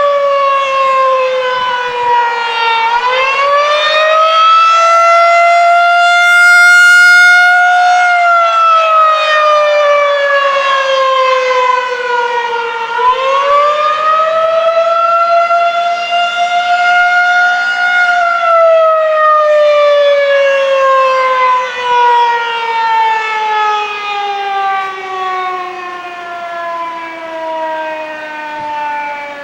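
Federal Signal 2001-SRN tornado siren sounding its attack signal: a loud wail that falls, rises and holds high twice. In the last third it slides steadily down in pitch and fades as it winds down.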